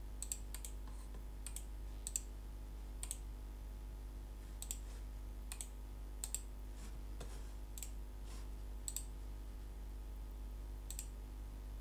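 Computer mouse clicking, about a dozen sharp clicks at irregular intervals over a steady low hum.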